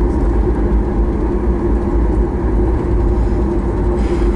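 Cabin noise of a Boeing 737 MAX 8 taxiing, heard from a window seat over the wing: its CFM LEAP-1B engines at idle give a steady low rumble with a steady hum.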